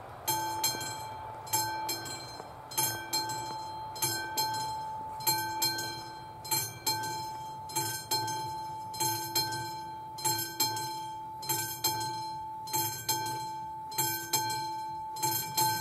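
Classic mechanical level-crossing bell starting to ring just after the crossing's warning lights come on, warning of an approaching train. It is struck in sharp, uneven strokes, about one to two a second, each ringing on with a steady tone between strokes.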